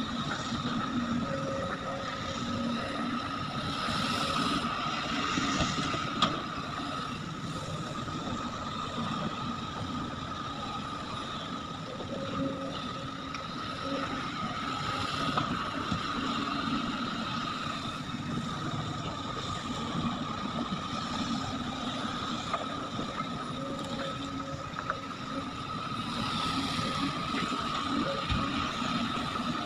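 Heavy diesel machinery running steadily as an excavator loads ore into a dump truck, with a steady high whine over the engine and a few sharp knocks.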